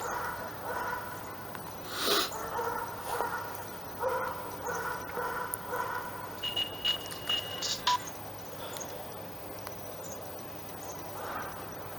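Siemens M65 mobile phone playing one of its preinstalled ringtones through its small built-in speaker: a run of electronic notes, then four quick high beeps about six and a half seconds in, after which the tone falls away about eight seconds in.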